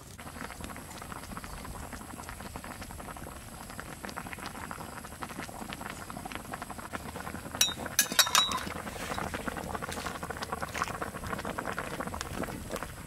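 A pot of turtle and pork-rib soup boiling over a wood fire, with steady bubbling throughout. About eight seconds in comes a brief cluster of sharp clinks.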